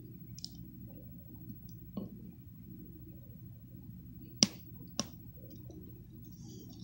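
Two sharp clicks about half a second apart near the middle, with fainter clicks earlier, over a low steady hum.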